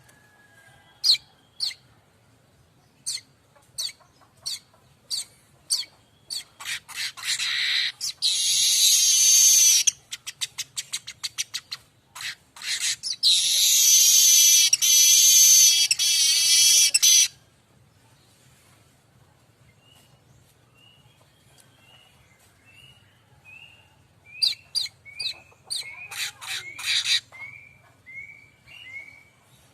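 Streaked weaver (manyar kembang) singing: sharp chips that come faster and faster, then two long buzzy trills. Later there is a run of short whistled notes mixed with more chips.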